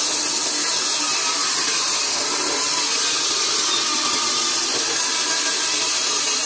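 Old vertical band saw cutting a wooden log lengthwise: a steady, loud hiss of the blade running through the wood as the log is fed along the table.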